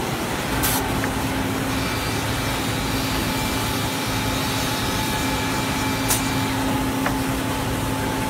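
Steady whirring noise of running woodworking machinery with a constant low hum. Two sharp clicks break it, one about a second in and one about six seconds in.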